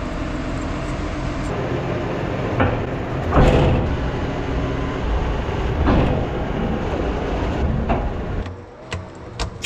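A farm vehicle's engine running steadily, with several knocks and clunks over it. The sound drops away about eight and a half seconds in.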